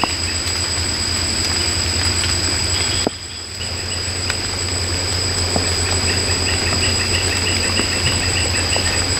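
Tropical forest insects at night: a steady high-pitched insect drone with rows of quick pulsed cricket-like chirps, over a low steady hum. The whole sound drops briefly about three seconds in, then carries on.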